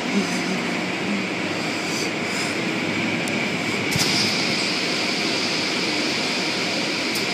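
Automatic car wash running: a steady rumble of spinning cloth brushes, machinery and water spray. About four seconds in there is a click, and after it a high hiss gets stronger.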